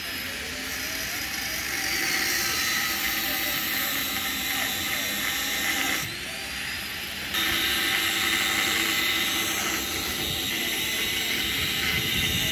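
A motor running steadily with a thin high whine over a lower hum, dipping for about a second midway.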